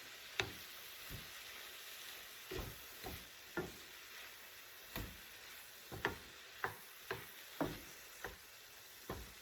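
Cauliflower rice and vegetables sizzling in a frying pan while being stirred, with a utensil knocking and scraping against the pan about a dozen times at irregular intervals.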